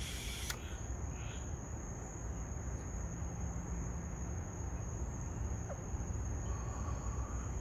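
Crickets trilling: a steady, thin, high-pitched tone over a low background rumble, with a brief hiss right at the start as smoke is drawn through a small glass pipe.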